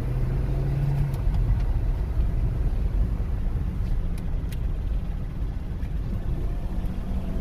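Hyundai Sonata being driven on a test drive after a throttle body replacement: a steady low rumble of engine and road noise.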